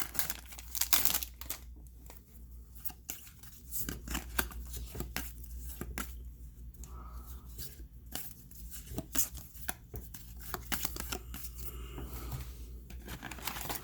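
Topps WWE trading cards and their pack wrappers being handled: a run of small clicks, slides and rustles as cards are flicked through and wrappers are torn, over a steady low hum.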